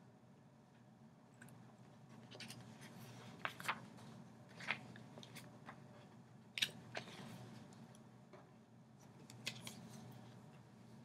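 Faint, scattered short scratches and clicks, irregularly spaced, over a steady low hum of room noise.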